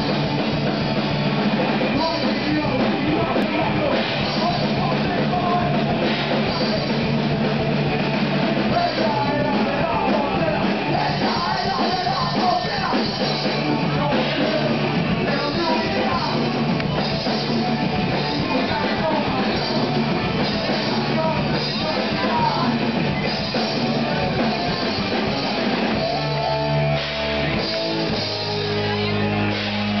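A rock band playing loud live music, with drums and guitar, recorded from within the crowd. Near the end the playing changes to steadier held notes.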